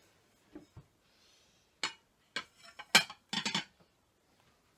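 Glass and china pieces being handled and set down on a table: a couple of soft knocks, then a run of sharp clinks and clatters about two to three and a half seconds in.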